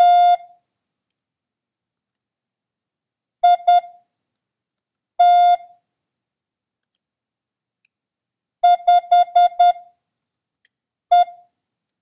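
Morse code practice tone, one pitched beep sending characters a couple of seconds apart: a dah (T), two dits (I), a dah (T), five quick dits (the number 5), then a single dit (E).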